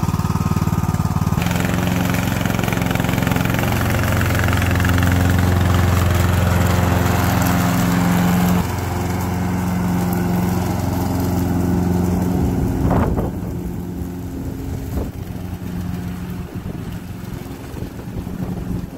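Ariens riding lawn tractor's engine running just after starting, a steady engine drone that gets louder about a second and a half in. The level drops suddenly about eight and a half seconds in, there is a brief sharp knock around thirteen seconds, and the engine then fades as the tractor drives away.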